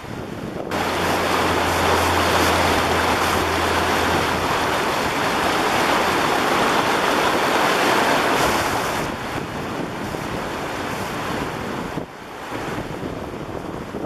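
Flooded River Thames rushing and churning, a loud steady roar of turbulent water that jumps up about a second in, with wind rumbling on the microphone.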